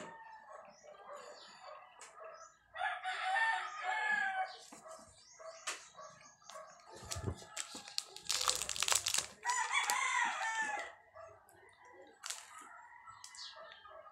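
A rooster crows twice, about three seconds in and again about ten seconds in. Between the crows comes a loud crackling burst close by.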